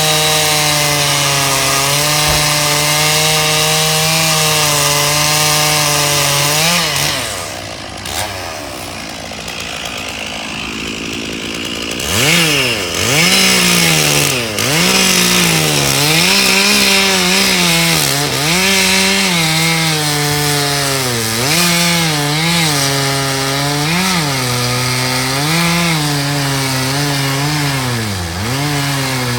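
Small petrol engine of a stump-cutting machine running at high speed while cutting into a pine stump. It runs steady, then slows and quietens for a few seconds around a quarter of the way in. When it revs back up, its pitch dips again and again as the cutter bites into the wood under load.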